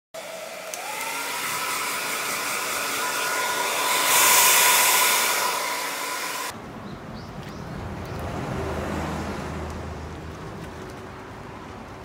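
A 1200 W hair dryer running: its motor whine rises as it spins up, then it blows steadily and grows louder for a moment before cutting off suddenly about six and a half seconds in. A low rumbling noise follows and slowly fades.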